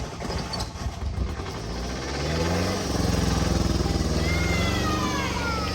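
A BMW's engine revving up, its pitch rising and then holding steady under load, as the car is driven through deep water at a river ford. Near the end, high whistle-like tones fall in pitch.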